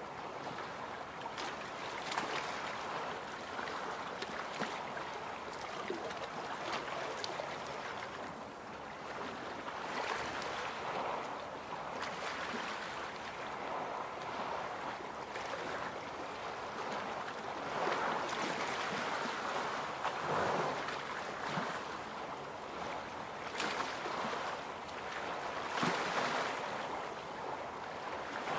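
Small waves of the Baltic Sea lapping against boulders and sand at the shoreline, the wash swelling and fading every few seconds.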